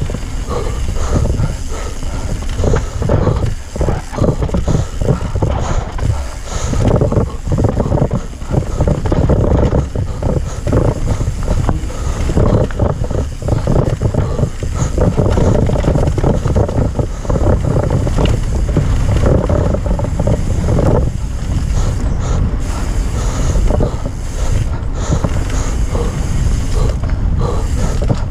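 Yeti SB150 mountain bike riding fast down a rough dirt singletrack: wind buffeting the camera's microphone over a continuous rattle and clatter of the bike and tyres hitting bumps.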